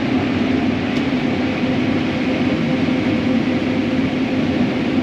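John Deere S670 combine running steadily while harvesting corn, a constant droning hum over machine noise.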